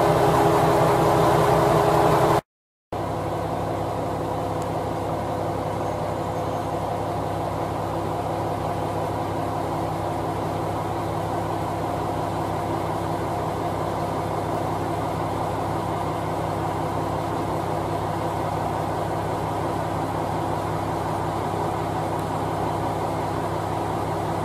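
Diesel railcar engine idling with a steady hum of several tones. The sound cuts out for a moment about two and a half seconds in, then the idle resumes a little quieter.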